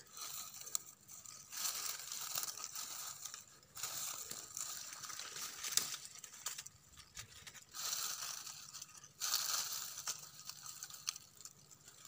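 Dry twigs and dead leaves rustling and crunching as a hand pulls apart an old, crumbling spotted dove's nest, in several irregular bouts.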